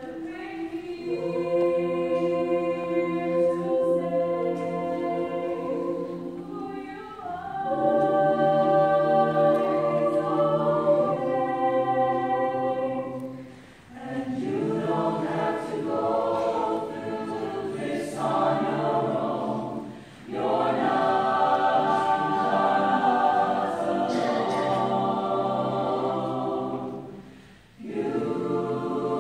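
Mixed-voice high-school choir singing long phrases in held harmony, breaking off briefly between phrases about halfway through, about two-thirds through and near the end.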